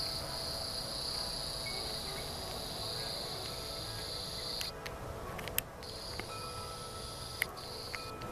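An insect's steady high-pitched buzzing song, the kind made by a cricket or cicada, breaking off about halfway and starting again a second later. A few sharp clicks from the camera being handled and set down fall in the second half.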